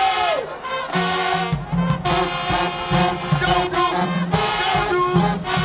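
Marching band brass section playing loudly. It opens on a falling smear in pitch, and a heavy low part comes in about a second and a half in.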